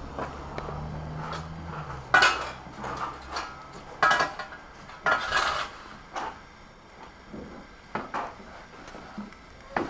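Shovel blade scraping across paving slabs as it scoops up wet leaves: three loud rasping scrapes about two seconds apart, with lighter knocks and clinks between them. A low steady hum is under the first couple of seconds.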